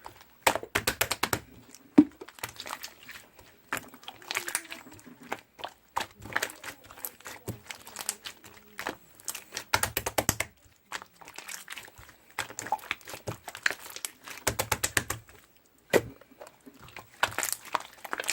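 Slime being squeezed and pressed by hand, giving clusters of rapid clicking and crackling pops with short pauses between them.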